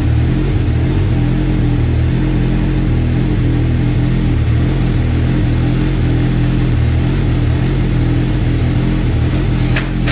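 Kawasaki Ninja ZX-6R's inline-four engine running at a steady idle after a rebuild, with a brief sharp click near the end.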